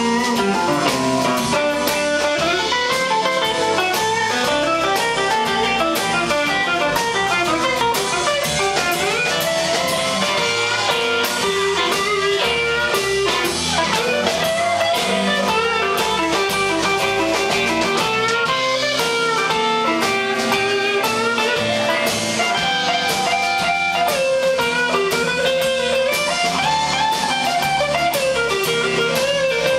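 Live blues band playing, with an archtop hollow-body electric guitar taking a solo over the band.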